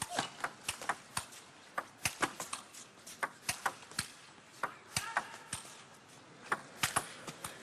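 Fast table tennis rally: the celluloid ball clicks sharply off the rackets and the table in quick, irregular succession, several hits a second.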